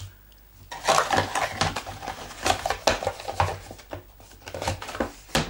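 Cardboard smartphone box and its contents being handled on a tabletop: a quick run of knocks, scrapes and rattles starting about a second in.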